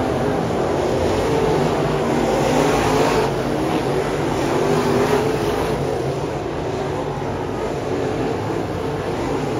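Several dirt late model race car engines running hard around a dirt oval. The sound swells near the middle as cars pass close, then eases slightly.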